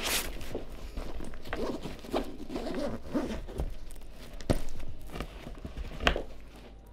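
Peak Design fabric backpack being handled and zipped: fabric rustling and a zipper running, with two sharp clicks about four and a half and six seconds in.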